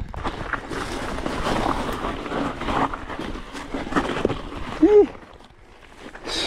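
Rough, irregular noise of a mountain bike and rider working up a steep rocky trail, with scattered knocks. About five seconds in comes one short grunt of effort.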